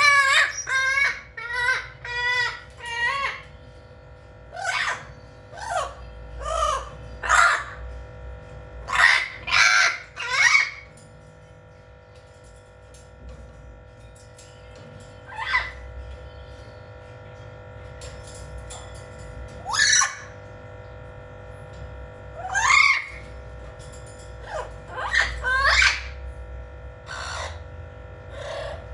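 Blue-fronted Amazon parrot calling and squawking loudly, a quick run of quavering calls in the first few seconds, then single calls spaced a second or several apart, with a lull near the middle.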